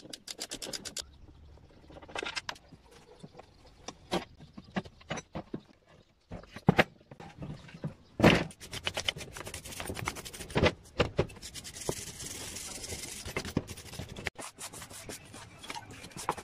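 Hand-tool disassembly of a rusty lawn mower: a screwdriver scraping and clicking against the engine's metal, scattered knocks as parts shift, and one loud knock about eight seconds in as the steel mower deck is lifted off the engine. Near the end comes a couple of seconds of hissing scraping.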